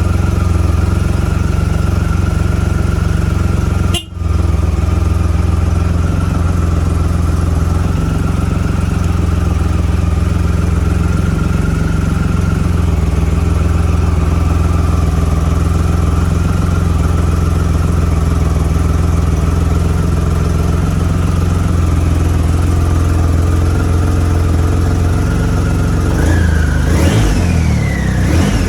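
2009 Triumph Rocket III's 2.3-litre inline-three engine idling steadily after its first start on a new battery, with a brief dropout about four seconds in. Near the end the throttle is blipped a few times, the revs rising and falling.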